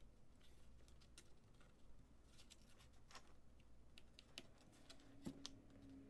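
Faint, irregular clicks and taps of fingertips pressing a rubber foot strip back into place along the plastic bottom case of an HP 14 laptop, with a slightly firmer tap a little after five seconds in.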